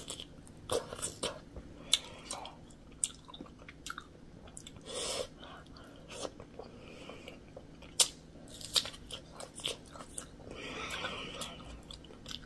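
Close-miked chewing of a juicy pork momo dipped in sauce: irregular mouth clicks and smacks, with a few sharper ones about two and eight seconds in.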